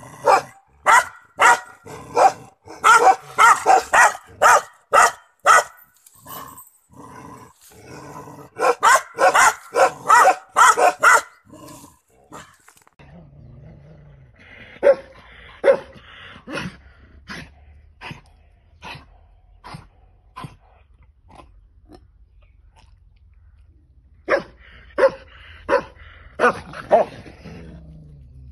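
Bakarwal puppy barking in quick runs of short, loud barks, two to three a second, in two bouts over the first dozen seconds. Then a larger dog barks at intervals of about a second, more quietly, over a low steady hum, with a closer run of barks near the end.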